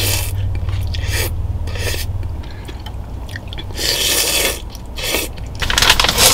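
A person slurping instant ramen noodles in several short hissing sucks, with chewing between them. Near the end comes a louder stretch of rustling and handling noise.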